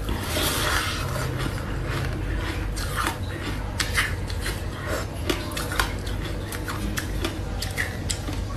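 Ice being chewed close to the microphone: an irregular run of sharp crunches and crackles, denser in the first couple of seconds, with a few louder cracks later on.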